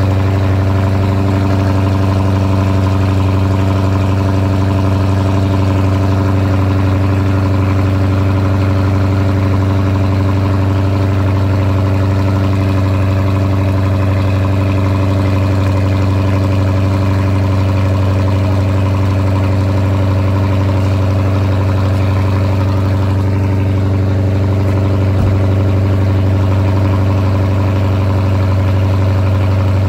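Chrysler 300 SRT's Hemi V8 idling steadily through its exhaust on a cold start, heard close at the tailpipe.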